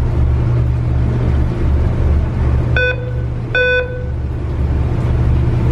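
Ferry engines running with a steady, pulsing low throb. Two short high beeps sound about three seconds in, less than a second apart.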